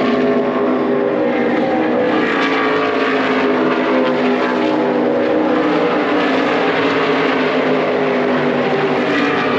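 NASCAR Xfinity stock cars' V8 engines running as a pack at caution pace: a steady drone of many overlapping engine notes.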